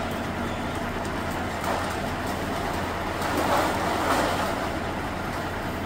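Rear-loader garbage compactor truck's diesel engine idling steadily. A swell of clatter and rustling a little past halfway as rubbish is tipped into the rear hopper.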